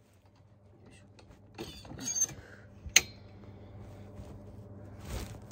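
Plastic pet carrier with a wire-grid door being handled: a clatter of plastic and wire about two seconds in, then a single sharp click of the door latch at about three seconds, the loudest sound. A low steady hum runs underneath, with a short rustle near the end.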